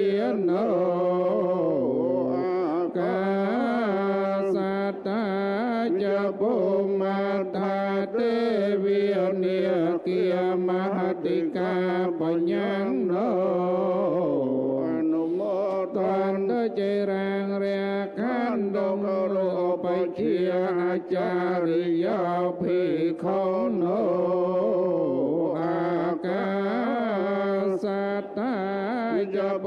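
Buddhist chanting by male voices, amplified through a public-address system, held on a steady reciting pitch with occasional dips and rises.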